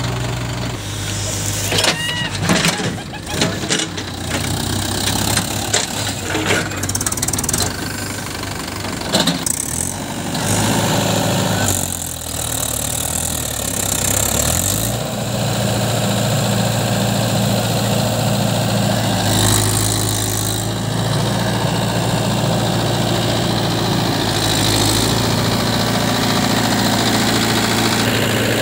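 Mahindra Yuvo 575 DI diesel tractor engine running under load as it pulls a trailer heaped with mud through soft ground. Irregular knocks and clatter come in the first ten seconds, and the engine note dips about halfway through, then holds steady.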